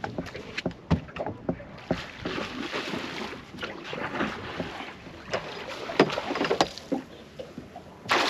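Irregular sharp knocks and clicks on a small fishing boat, with a stretch of splashing water in the middle, as a hooked barramundi is played close beside the boat.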